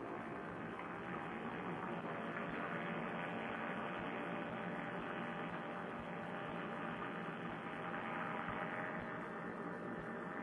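Paramotor trike engine and propeller droning steadily in cruise flight, a constant hum muffled and cut off at the top as if picked up through a Bluetooth headset microphone.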